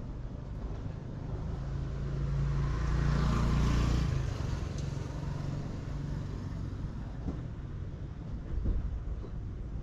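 Road traffic: a steady engine hum, with a vehicle passing close by that grows louder to a peak about three to four seconds in and then fades.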